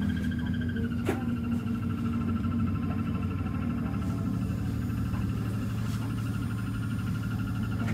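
Steady electrical whine with a warble over a low hum inside the cab of a Hakone Tozan Railway electric train halted at a switchback. The whine dips slightly in pitch about a second in, where a single knock is heard.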